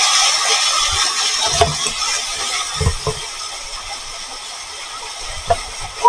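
Waterfall: a steady rushing hiss of falling water that slowly fades, with a few low thumps.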